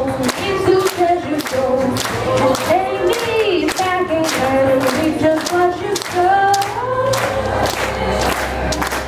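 A young girl singing a song into a microphone over backing music with a steady beat.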